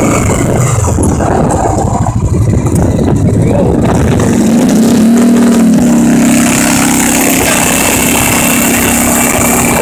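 Four-wheeler engine running while driving, its pitch rising and dipping about five seconds in, then holding a steady note.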